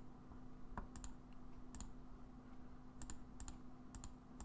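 Computer mouse button clicked again and again, several sharp short clicks, some in quick pairs, over a faint steady low hum.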